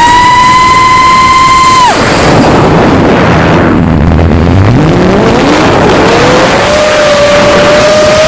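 A 5-inch FPV quadcopter's brushless motors whine at a high, steady pitch, then drop sharply about two seconds in as the throttle is cut. After a couple of seconds of rushing noise, the pitch climbs back up and settles into a lower steady whine.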